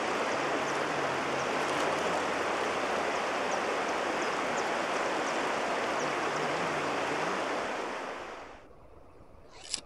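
Rushing river water: a steady, even hiss that fades down about eight seconds in.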